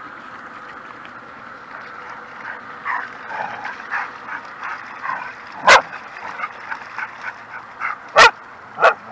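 A dog whining and yipping in short high calls, then barking: three loud barks, about five and a half seconds in, about eight seconds in, and again just after.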